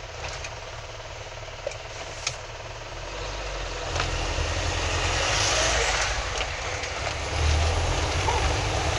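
Road and engine noise heard inside a moving car's cabin: a steady low rumble and hiss that grows louder about four seconds in. Two faint clicks come near the start.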